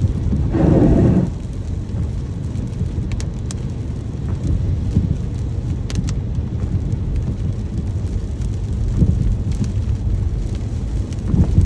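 Steady rain with a deep low rumble underneath and scattered faint drop clicks, with a brief louder swell about half a second in.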